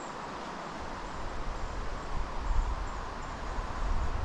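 River water running steadily, with wind buffeting the microphone in an uneven low rumble from about a second in.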